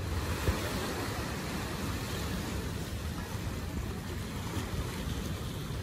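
Ocean surf washing against the base of the sea cliffs: a steady, even rush, with a low rumble underneath and one brief knock about half a second in.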